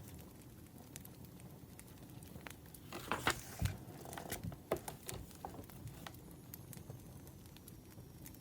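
Wood fire crackling with scattered sharp pops, and from about three seconds in a few seconds of rustling and soft knocks.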